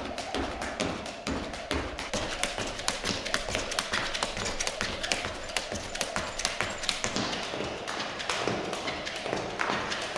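Jump rope slapping a wooden parquet floor as feet land in a quick, steady rhythm of taps and light thuds.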